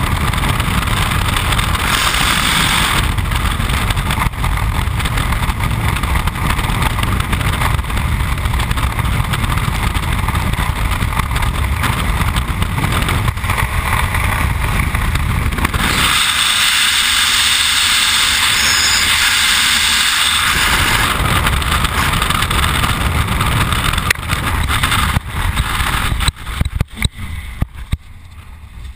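Freefall wind rushing over the camera's microphone during a skydive, loud and steady. In the last few seconds it breaks up into uneven gusts and drops away as the parachute canopy opens and the fall slows.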